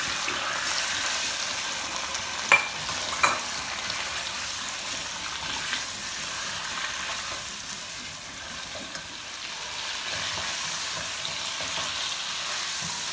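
Raw chicken pieces sizzling as they fry in hot oil in a nonstick pot, stirred with a spatula, with two sharp knocks about two and a half and three seconds in.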